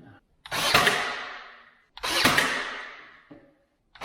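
Brad nailer firing brads into cabinet trim, two shots about one and a half seconds apart, with a third just at the end. Each shot is a sudden crack followed by a trailing hiss that fades over about a second.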